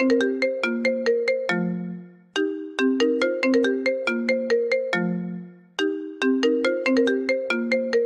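iPhone ringtone playing: a short melody of quick marimba-like struck notes ending on a low note, repeating about every three and a half seconds.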